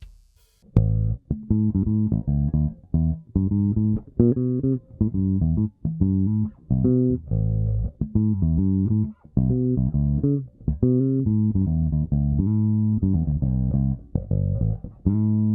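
Nordstrand Acinonyx short-scale electric bass played with both single-coil pickups on and the second tone button selected, which rolls the tone about halfway down. It plays a riff of short plucked notes at changing pitches and ends on a long held note.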